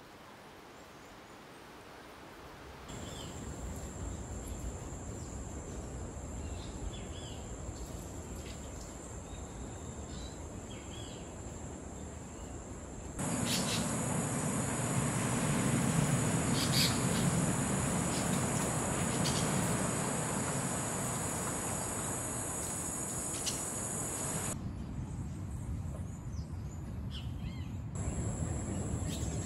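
Tropical forest ambience: a steady, high-pitched insect drone with brief bird chirps over it. Near the middle it gets louder, with a low rushing noise underneath. The drone cuts in, changes and drops out abruptly a few times.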